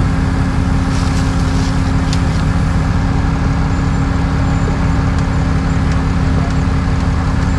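Truck engine running steadily at an even speed: a constant low drone with a steady hum.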